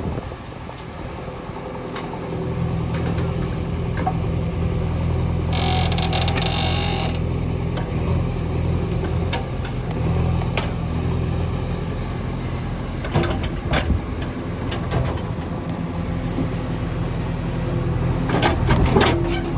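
JCB 3DX backhoe loader's diesel engine running steadily under digging load, with a brief high tone about six seconds in and sharp metallic knocks near 13 seconds and again near the end as the bucket works.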